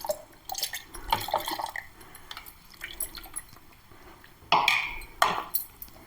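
Water splashing and dripping as a mixer-grinder jar is rinsed out, with small clinks and two louder clatters of the jar about four and a half and five seconds in.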